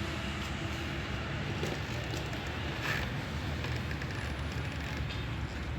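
Steady low rumble of background street traffic, with a couple of faint clicks.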